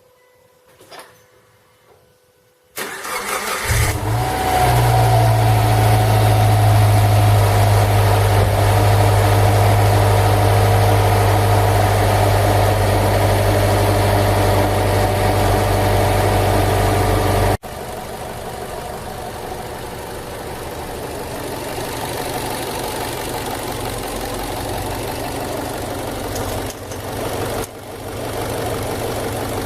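Subaru Legacy's EJ204 2.0-litre flat-four cranked and started about three seconds in, on its first start after a timing belt kit replacement, then idling steadily. About 17 seconds in the sound cuts abruptly and the engine runs on at a lower level; the owner reports a knock from the timing belt tensioner.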